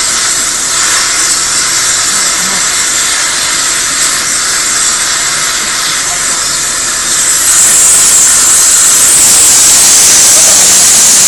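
Gas preheating torch for a thermite rail weld hissing steadily, growing louder about three-quarters of the way in.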